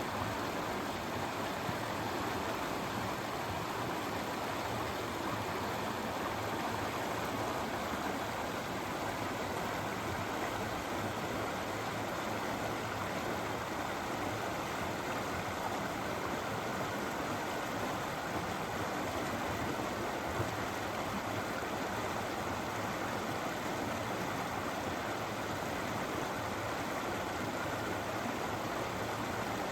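Great Langdale Beck, a fell river, rushing and babbling over rocks in a steady, even flow.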